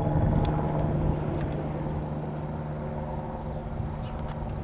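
Cessna 172S Skyhawk SP's Lycoming four-cylinder piston engine and propeller droning as the plane passes overhead and flies away. The sound slowly fades after about a second in.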